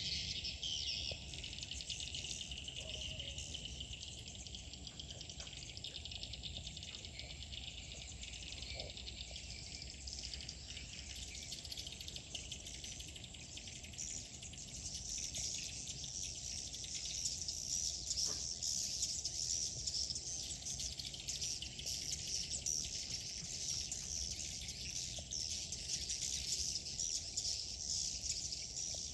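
Swiftlet calls: a dense, continuous high twittering that grows louder about halfway through, over a steady low rumble.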